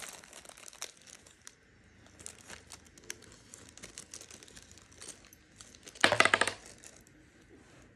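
Small plastic zip-lock bag crinkling, with light clicks of small metal hex keys and screws being handled. About six seconds in there is a short, louder rasping rattle.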